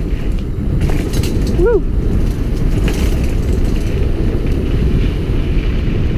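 Mountain bike riding fast over a dirt trail, with a steady rumble of wind buffeting and tyre noise and a few sharp rattles of the bike, heard from a helmet-mounted camera. A rider's short "woo!" rises and falls in pitch about a second and a half in.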